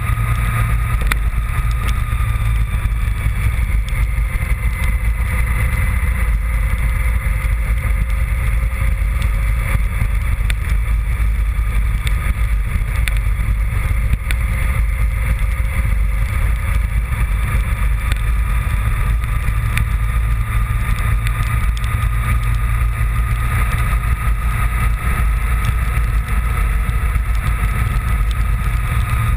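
Honda VFR750's V4 engine running steadily at cruising speed, its pitch wavering only slightly, under a heavy constant low rumble.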